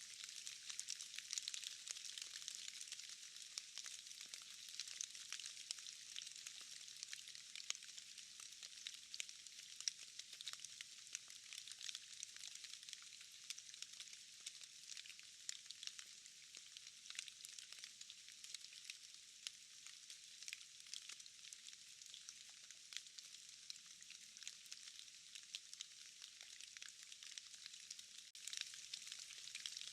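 Steady rain in a forest: a fine, even hiss thick with many small ticks of drops falling onto leaves and moss.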